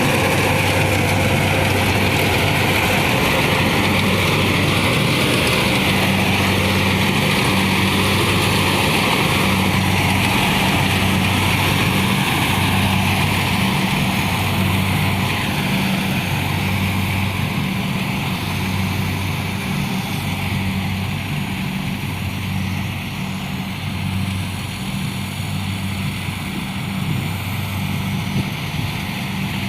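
Kubota combine harvester running steadily while harvesting rice: a constant engine hum with a dense mechanical clatter over it, easing a little in loudness about halfway through.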